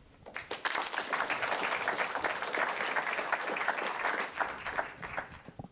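Audience clapping, building up within the first second, holding steady, then dying away just before the end.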